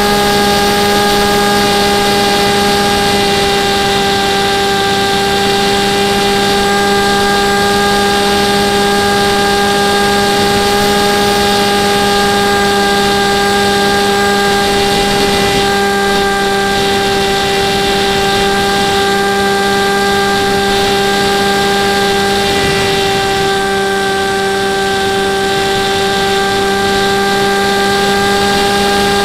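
Motor and propeller of an FPV model airplane, recorded from its onboard camera: a steady, even drone that dips slightly in pitch about two-thirds of the way through, over a rush of air noise.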